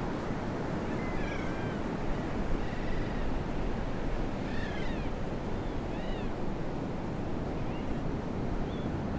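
Steady rushing background noise, with short high chirping calls now and then, some in quick pairs.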